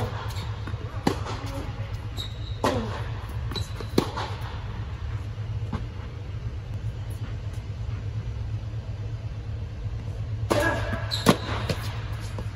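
Tennis ball struck by rackets and bouncing on a hard court, sharp echoing pops every second or so, with a lull of several seconds in the middle before more hits near the end. Under it, a steady low hum from the air-supported dome's blower fans.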